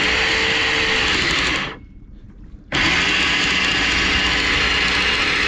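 Electric anchor windlass hauling in the anchor chain in two runs, the first about two seconds and the second about three, with a short pause between. It is worked in short runs, then stopped while the boat moves up over the chain, so the windlass does not take the boat's load.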